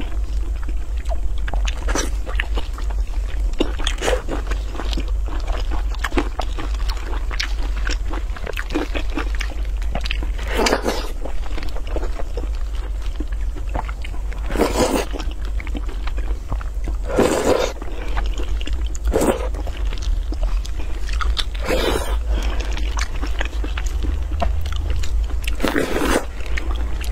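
Close-miked eating of braised pork: wet chewing, lip smacks and mouth clicks, with several louder slurping or sucking sounds spread through. A steady low hum runs underneath.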